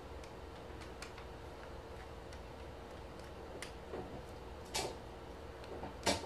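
Scattered small clicks of a Torx screwdriver and plastic as a screw is worked out of the plastic cover of a Dyson cordless vacuum's floor head, with louder clicks near the end, over a faint steady hum.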